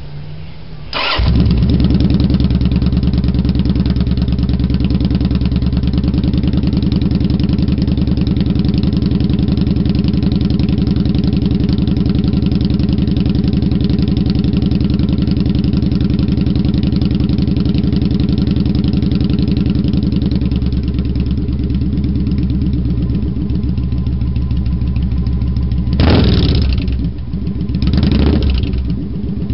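Kawasaki Vulcan 900 V-twin through Cobra Speedster Longs pipes with no baffles fitted, starting up about a second in after a brief crank and then idling steadily. Near the end it is blipped twice on the throttle, each rev rising and falling quickly.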